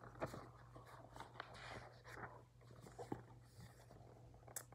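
Faint rustling and small taps of a picture book's paper pages being turned and handled, over a faint steady low hum.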